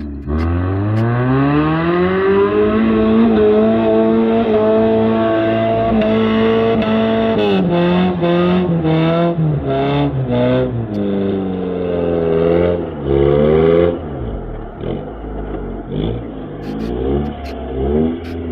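Off-road 4x4 engine revving hard: the pitch climbs over the first couple of seconds and holds high. Then it drops and surges several times before falling back lower and uneven for the last few seconds, with scattered short knocks and clatter.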